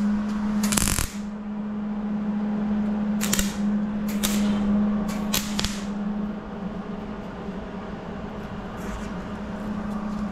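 MIG welder stitch-welding a sheet-steel firewall panel: four short bursts of arc crackle, each about half a second, in the first six seconds, then fainter ones, over a steady low hum.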